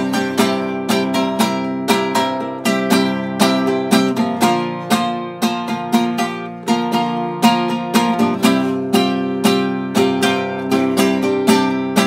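Classical nylon-string guitar strummed in a steady rhythm, about three strokes a second, with the chords changing every few seconds.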